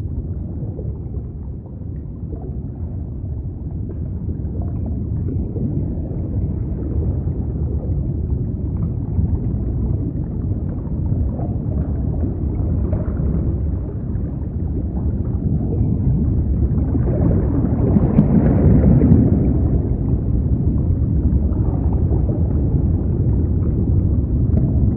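A low, deep rumbling ambience, like water heard from deep below, that slowly grows louder and swells to its loudest about three quarters of the way through.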